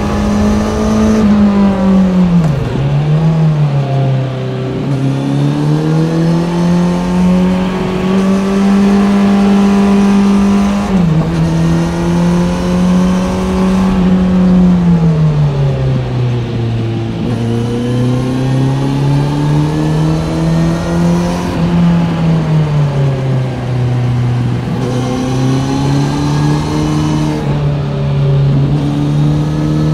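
Kawasaki Z900's inline-four engine through an Ixil SX1 full exhaust system, riding through corners: the revs climb and fall again and again, with a few sudden drops in pitch as it shifts gear.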